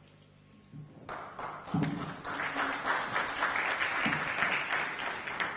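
Audience applauding, starting about a second in and growing denser and louder.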